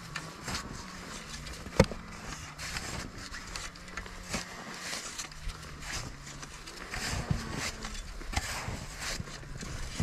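Snow shovel digging into deep snow: repeated scoops, scrapes and crunches, with one sharp knock about two seconds in. A steady engine drone runs underneath.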